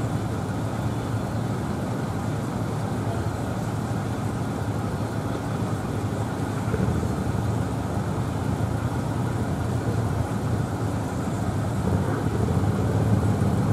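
Steady low rumble of outdoor city background noise, growing slightly louder near the end.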